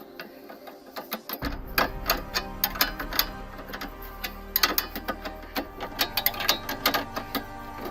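Ratchet wrench clicking in quick, uneven runs as the nut on a car's stabilizer-bar (sway bar) link is tightened. A low steady hum comes in about a second and a half in.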